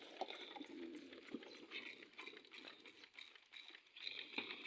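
Goats feeding on wet grass: faint, irregular crunching and rustling as they tear at it and chew.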